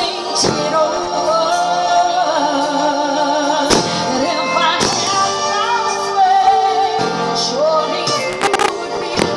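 A woman singing a song through a microphone and PA over instrumental backing music, holding long, wavering notes.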